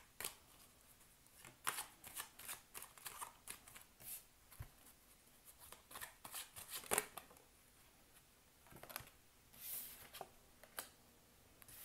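Tarot cards being shuffled and dealt by hand onto a wooden table: faint, scattered flicks and taps of the cards, the sharpest tap about seven seconds in.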